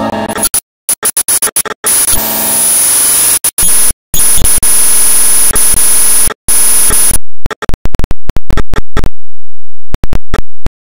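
Loud harsh static, a glitching noise with a steady high whine, that cuts in and out abruptly many times and then stops dead near the end.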